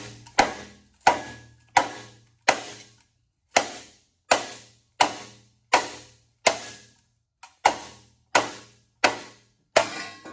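Repeated sharp strikes, about one every 0.7 seconds with one beat skipped, each ringing out for about half a second over a low steady hum.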